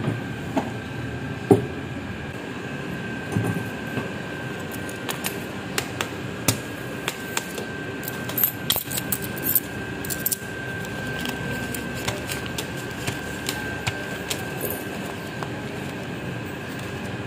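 Steady room hum with a thin, steady high whine, broken by scattered light clicks and rustles from banknotes and paper sheets being handled at a counter. The clicks come thickest in the middle.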